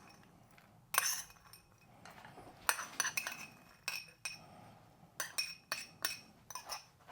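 A metal utensil clinking against a plate and pan while lardons are spooned onto the finished dish: about a dozen light, irregular clinks.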